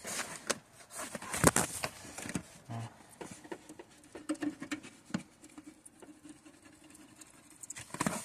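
Hands working wiring through a car door behind its peeled-back sound-deadening sheet: scattered rustling, scraping, taps and clicks, with a sharper knock about a second and a half in.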